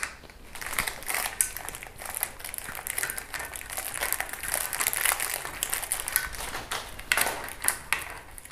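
Kodak T210 tripod's mobile phone holder being handled and fixed onto the tripod head: a rapid run of small clicks and scraping as it is worked into place and tightened.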